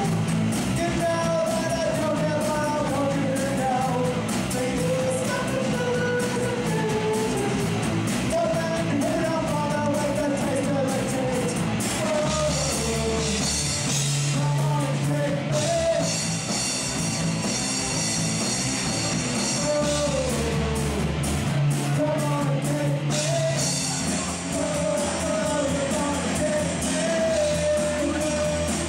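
Live rock band playing with a singer: electric guitar, bass and drum kit with cymbals, and a sung melody over it.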